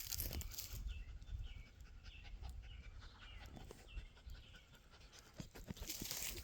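A dog panting, faint.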